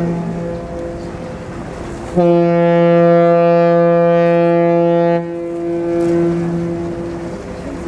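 The Costa Victoria cruise ship's whistle sounds a deep, long blast of about three seconds, starting about two seconds in and stopping sharply. The tail of an earlier blast echoes at first, and this one echoes on after it stops. It is a departure signal as the ship leaves port.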